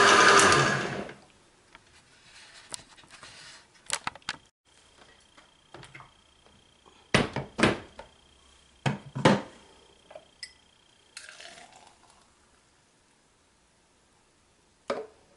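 A Vitamix blender runs loudly and cuts off about a second in. Then come scattered clunks and knocks as the plastic jar is handled and a glass is set on the stone counter.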